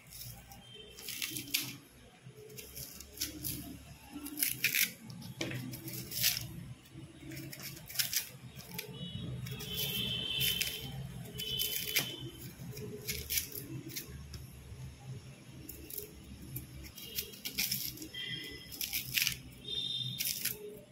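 Kitchen knife peeling the skin off a raw green plantain: a run of short, irregular scraping and tearing cuts as strips of peel come away.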